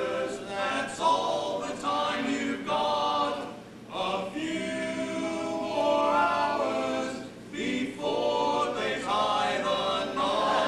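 Stage cast singing together in chorus, many voices at once, with two short breaks between phrases.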